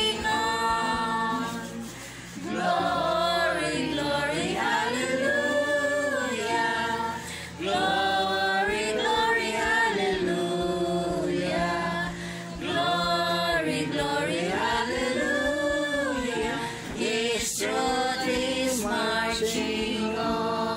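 Background music: a song with sung, choir-like vocals holding long, bending notes over a low bass line.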